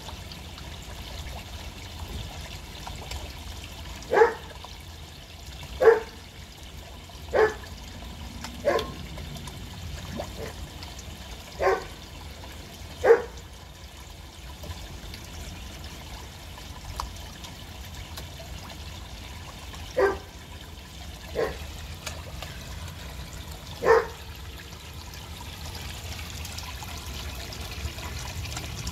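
Water falling steadily from a pond filter outlet into a koi pond, with about ten short, sharp, loud sounds at irregular intervals over it.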